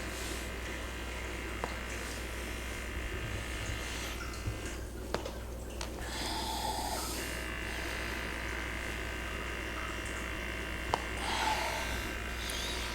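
Small electric motor buzzing steadily, with a few faint clicks.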